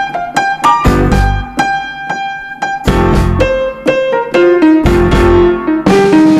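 Background music led by piano or electric piano: a melody of struck notes over a low bass note that changes about once a second.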